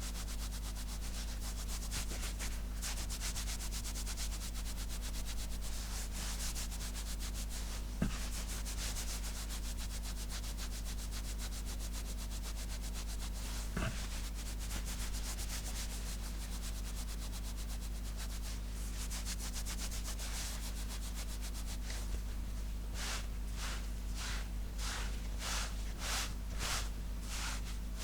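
Fingernails scratching and rubbing on clothing fabric, close to the microphone, in quick continuous strokes. Near the end these turn into slower separate strokes, about two a second. A short knock comes about eight seconds in, over a steady low hum.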